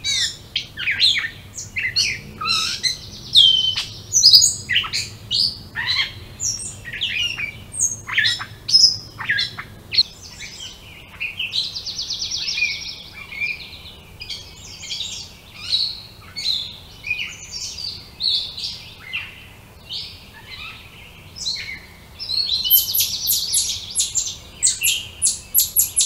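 Several songbirds singing at once: a busy mix of chirps, whistled notes and quick sweeps, with fast rattling trills about halfway through and again near the end.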